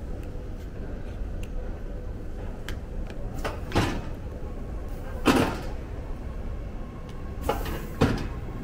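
BART fare gate's swinging doors knocking open and shut as a card is tapped and the rider passes through: three sharp clacks, the loudest near the middle, over a steady low hum.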